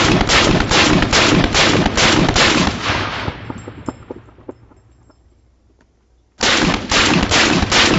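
AR-15 rifle firing rapidly, about four shots a second. The shots stop about three seconds in and their echo dies away, then rapid firing starts again abruptly about six and a half seconds in.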